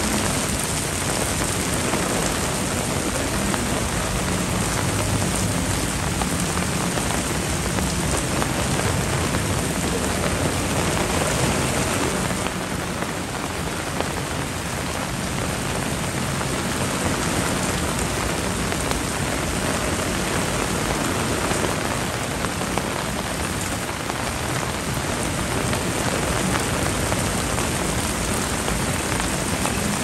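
Heavy typhoon rain falling steadily, a dense, even hiss of rain striking the ground and surfaces.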